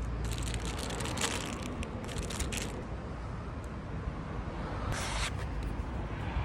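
Short scraping, rubbing noises, several in the first three seconds and another about five seconds in, over a steady low rumble.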